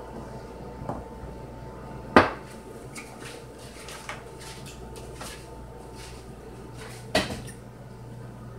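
Kitchen clatter: two sharp knocks about five seconds apart, the first the louder, with lighter clinks and taps between them over a steady low hum.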